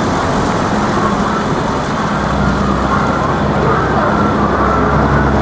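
Road traffic noise, with a steady low engine hum that grows stronger about two seconds in, over indistinct voices of people nearby.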